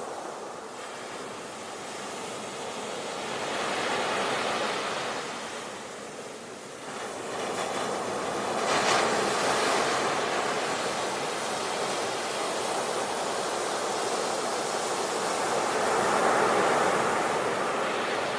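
Ocean waves breaking on a beach: a steady rush of surf that swells and ebbs, with louder breakers about four seconds in, near the middle and near the end.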